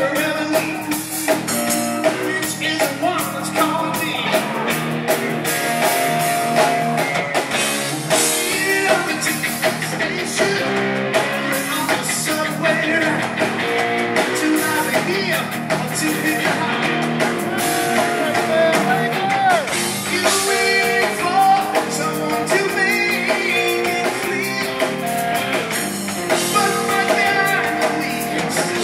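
Live rock band playing loud and continuously, with a male lead vocal over electric guitar.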